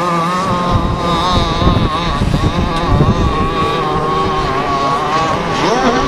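Radio-controlled model speedboat's fuel engine running flat out with a steady high whine as the boat skims across the water. Wind rumbles on the microphone from about a second in.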